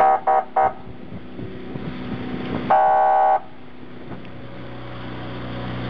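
A boat's horn gives three short toots, then one longer toot about three seconds in, over the low running of the boat's engine, which grows louder near the end.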